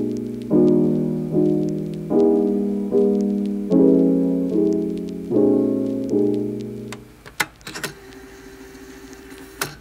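Piano background music: soft chords struck about every 0.8 seconds, each fading before the next, until the music stops about seven seconds in, leaving a quiet stretch with a few faint clicks.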